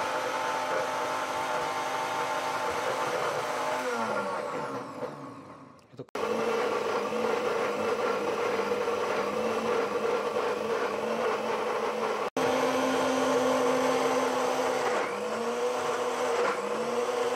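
Electric mixer grinder blending spinach leaves: the motor runs, winds down and stops about four to six seconds in, then is switched on again and runs, with a brief break about twelve seconds in. The spinach is too dry, so it is not turning over properly in the jar.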